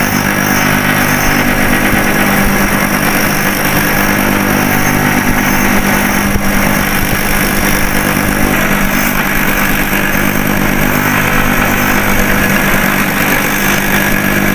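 Motor-driven drum sander running steadily, its abrasive sleeve grinding down and rounding off the edges of rubber sole patches glued to a shoe's toe and heel.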